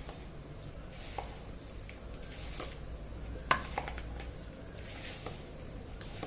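Chopped cabbage and onion being rubbed and squeezed by hand with oil and spices in a plastic bowl, with scattered light clicks and knocks, the sharpest about three and a half seconds in.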